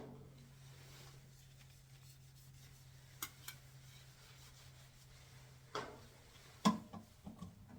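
Hands working lubricant onto a washer door boot's spring clamp and rubber: faint rubbing, a couple of light clicks, then louder knocks and handling sounds near the end, over a faint steady hum.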